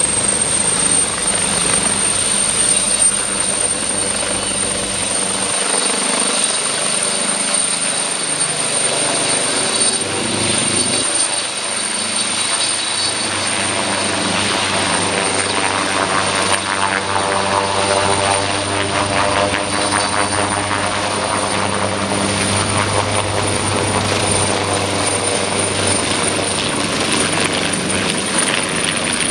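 AgustaWestland AW139 helicopter running at power: a steady high turbine whine from its twin PT6C turboshaft engines over the rotor noise. From about halfway the sound takes on a sweeping, phasing quality as the helicopter moves.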